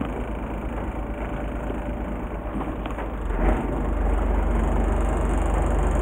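Fishing boat's engine running with a steady low drone, growing louder after a short thump about three and a half seconds in.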